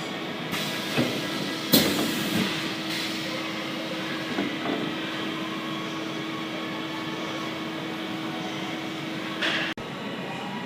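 Welding machine running: a steady mechanical hum with a held tone, a few clicks and knocks in the first couple of seconds, and an abrupt cut-off near the end.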